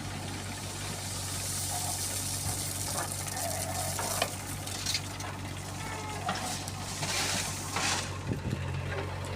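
Stone chips pouring and rattling into a tractor trolley in several surges, a rushing hiss over the steady hum of a diesel engine running.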